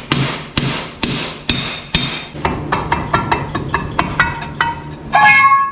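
Hammer blows on a steel brake drum to work it loose: ringing metallic hits about two a second, then quicker, lighter blows. It ends in a loud clang that keeps ringing near the end.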